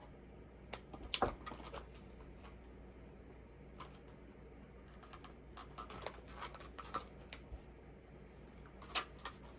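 Scattered clicks, ticks and scratches of plastic and cardboard toy packaging being handled and opened, with a cluster about a second in, another around six to seven seconds in, and a sharp click near the end.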